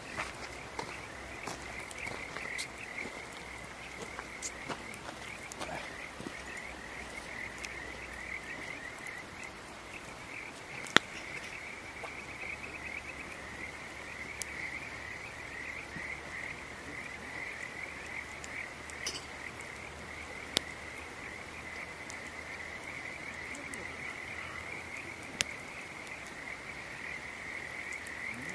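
A chorus of frogs calling continuously in rapid, repeated notes, with a few sharp pops from a wood campfire, the loudest about a third of the way through.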